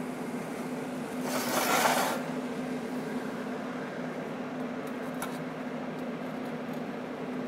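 A brief TIG welding arc from an Everlast PowerTIG 250EX, a hiss about a second long starting just over a second in, fusing separated spring wire on a dustpan handle. A steady low hum runs underneath.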